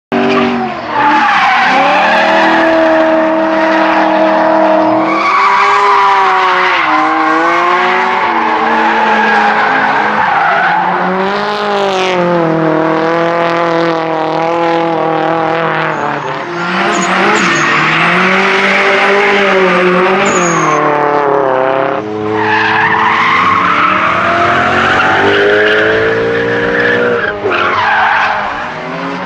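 Drift cars sliding sideways at high revs: engines revving up and down over and over as the drivers work the throttle, with continuous tyre squeal from the spinning rear tyres. The engine pitch keeps swinging with brief breaks between runs.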